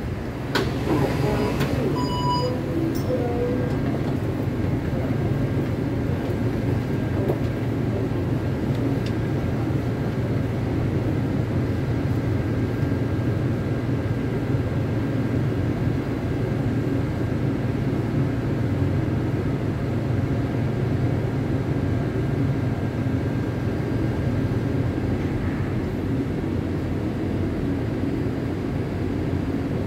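Inside a Taipei Metro C371 car (IGBT-VVVF traction) running through a tunnel: a steady, loud rumble of wheels on rail and traction equipment. A few short beeps and clicks sound in the first few seconds.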